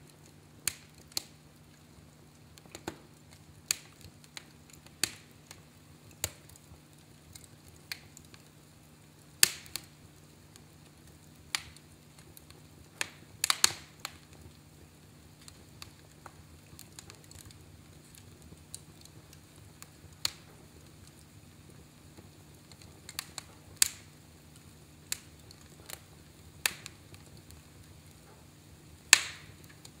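Burning logs crackling in a fireplace: sharp, irregular pops every second or two, a quick cluster of them about halfway through and the loudest one near the end, over a faint steady low hum.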